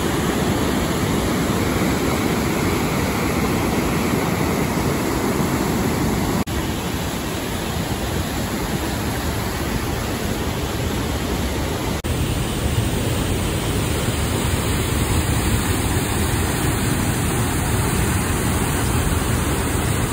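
Steady rush of a river in full flow pouring over a weir and waterfall into white-water rapids. The noise changes abruptly twice, at about six and twelve seconds in.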